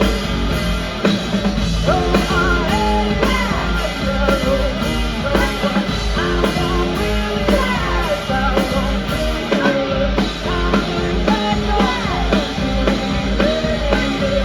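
Live rock band playing: drum kit, electric guitar and bass under a sung lead vocal that comes in about two seconds in.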